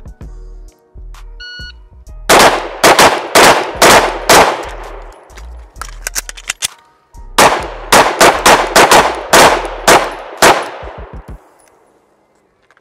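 A shot timer beeps about a second and a half in. Two pistols then fire a rapid string of shots, fall silent for about two seconds while magazines are changed, and fire a second rapid string: a five-shots, reload, five-shots timed drill.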